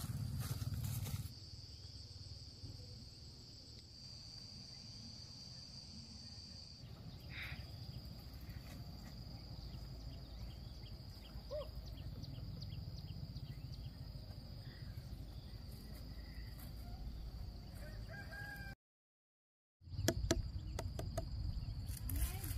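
Rural outdoor ambience: a steady high insect buzz, with a rooster crowing in the background. The sound drops out completely for about a second near the end.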